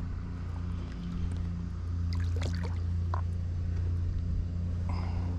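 Steady low motor hum, with a few faint clicks and handling noises about two to three seconds in.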